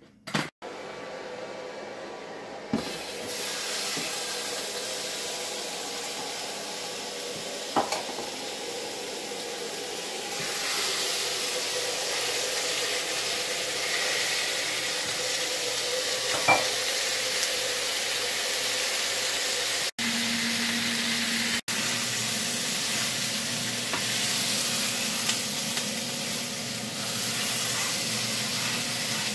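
Lamb pieces sizzling steadily as they sear in a frying pan, with a few sharp clicks of tongs against the pan.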